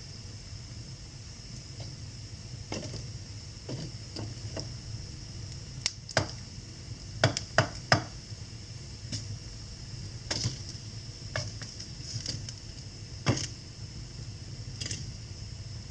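Wood fire crackling in a fireplace: irregular sharp pops and snaps over a steady low rumble and hiss, with a quick run of the loudest pops about halfway through.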